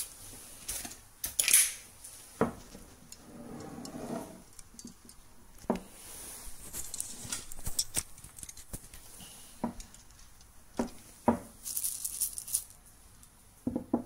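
Handling noises: scattered clicks and knocks of roasted coffee beans and a plastic spoon against a stone mortar as it is moved about the counter, with a few short rustles of the paper coffee bag.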